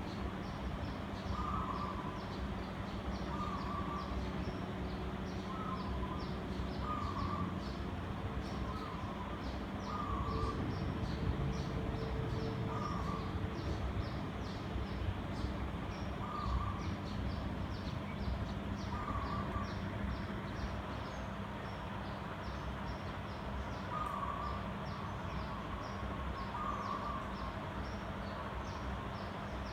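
56-inch Sunwindy ceiling fan running with a steady motor hum and rushing air. Short bird calls repeat every second or two, with a fast high chirping behind them.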